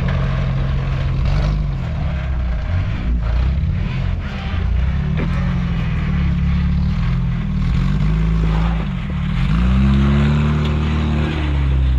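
1986 Toyota pickup's engine running on the trail, its revs rising and falling and climbing highest about ten seconds in before easing off.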